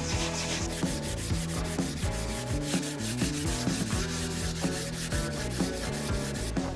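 Sanding on a wooden mold, a steady rubbing, under background music with a quick, even beat.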